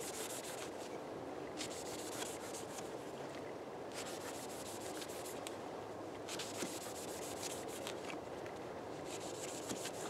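Kizlyar Kalibr dagger blade sawing back and forth through thick linen-hemp rope against a wooden log: a dry fibrous rasping in irregular strokes. Around the 35th to 40th cut of the test, the edge is beginning to struggle with the rope.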